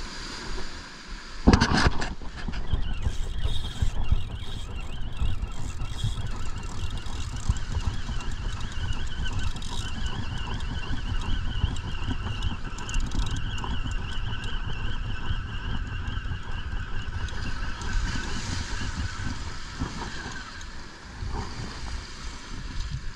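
Spinning reel being cranked to wind a hooked fish in through the surf, its gears giving a steady high whir, over wind buffeting the microphone. A single loud knock about a second and a half in.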